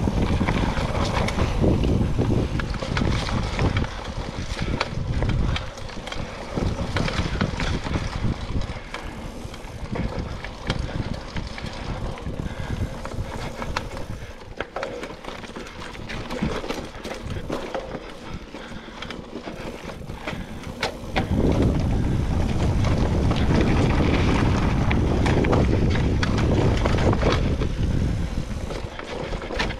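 Mountain bike being ridden along dirt singletrack: tyres on dirt and the bike rattling and clicking over bumps. Wind buffets the microphone throughout as a low rumble, loudest over the last third.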